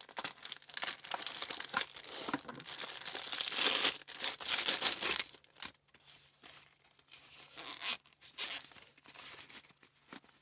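Packaging being torn open and crinkled by hand, a dense rustling and tearing that is loudest a few seconds in, then trails off into sparser crinkles.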